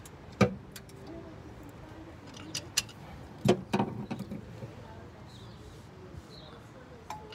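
Sharp metallic clinks and knocks of a socket wrench on the crankshaft pulley bolt, as the engine is turned by hand to find top dead centre. There are a few scattered strikes, the loudest about half a second in and a cluster around three and a half seconds in.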